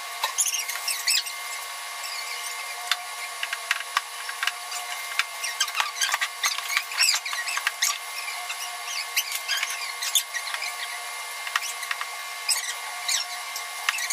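Cans, bottles and plastic bags being handled on a countertop: scattered clicks and knocks with many short squeaks, over a steady faint whine.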